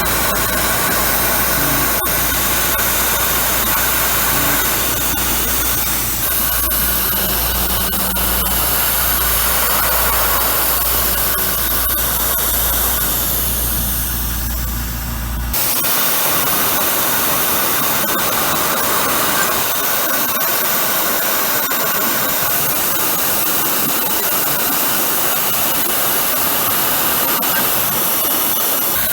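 Tormach PCNC 770 CNC mill running a cutting cycle on aluminum, a steady loud hissing machine noise. About halfway through, a low hum underneath cuts off suddenly while the hiss carries on.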